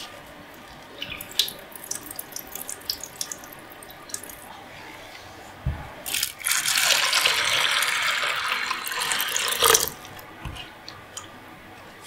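Hands stirring wheat grains in a wooden bowl, the kernels rattling lightly. About six seconds in, water pours from a glass measuring cup onto the grains for about three and a half seconds, the loudest sound, and then stops suddenly.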